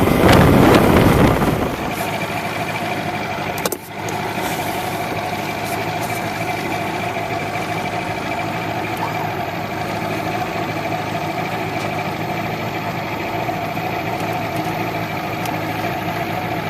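Boat's outboard motor running steadily, a constant engine drone, with a loud rushing noise over the first couple of seconds and a brief dip near four seconds in.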